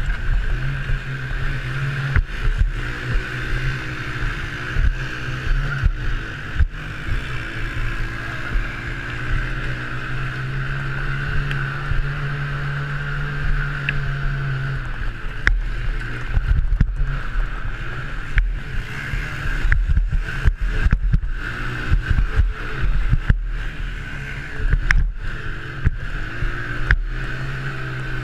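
Honda TRX90 mini quad's single-cylinder four-stroke engine running under racing load, its pitch rising and falling as the throttle opens and closes, heard from a helmet-mounted camera with wind noise. Short knocks and rattles from the bumpy dirt track come through, more often in the second half.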